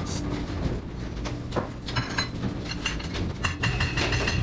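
Metal parts and tools clinking and knocking as a ball-lift wheel assembly is handled, with ringing metallic clinks from about three seconds in, over a steady low background rumble.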